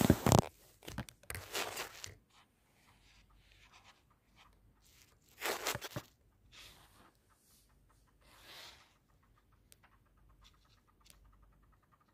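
A disdasha's thin fabric rustling and swishing in a few short bursts as the robe is lifted, flipped and spread out on an ironing board, loudest in the first couple of seconds.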